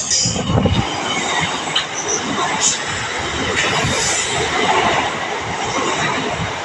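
Indian Railways train running along the track: a steady rush of wheel-on-rail noise with irregular low knocks and rattles.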